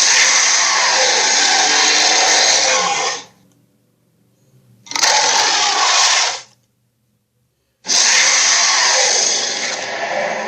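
Movie sound effect of a Tyrannosaurus roaring, three loud, harsh roars: the first lasts about three seconds, a shorter one follows about five seconds in, and the third starts near eight seconds and trails off at the end.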